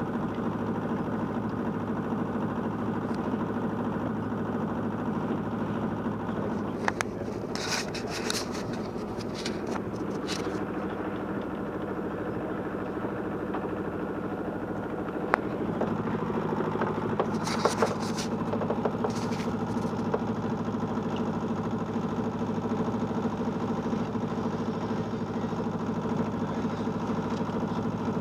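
A sailboat's small inboard diesel auxiliary engine running steadily at low revs while the boat backs out of its slip, getting louder from about halfway through. A few brief sharp clatters come over it twice.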